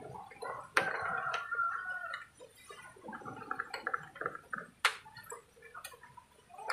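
A small tin can being opened by hand with a small can opener: uneven rasping and creaking of the metal lid being cut, with a few sharp clicks.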